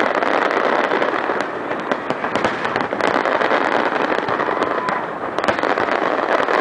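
Aerial fireworks bursting close overhead: a dense, continuous crackling with many sharp bangs and pops throughout.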